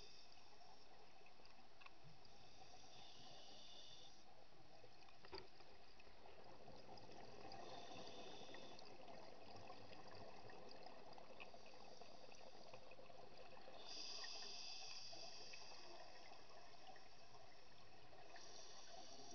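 Scuba regulator exhaust bubbles, heard underwater, bubbling in bursts of a second or two every few seconds over a steady underwater hiss, with one sharp click about five seconds in.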